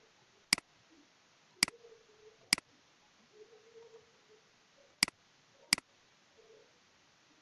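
Computer mouse button clicking five times, sharp single clicks: three in the first few seconds, then two close together near the end.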